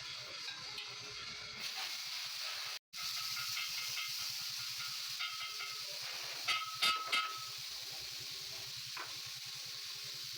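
A steady sizzling hiss, broken off briefly about three seconds in, with a few sharp clinks around seven seconds.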